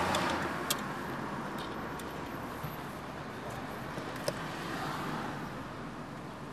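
Steady hum of car cabin and traffic noise inside a car. A few short, light clicks come through it, about a second in, at two seconds and past four seconds, as the glove compartment and sunglasses are handled.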